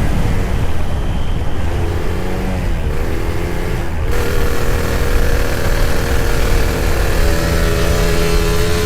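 Two-stroke motorcycle engine running on the move, its pitch changing as the throttle is opened and eased, over a heavy wind rumble on the microphone.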